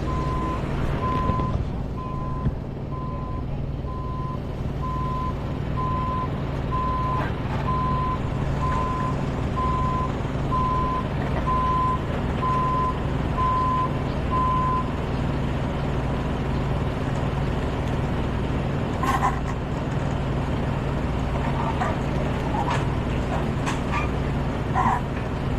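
Backup alarm of a reversing vehicle beeping at a steady pace, about one and a half beeps a second, over a diesel engine running steadily. The beeping stops about two-thirds of the way through, leaving the engine running.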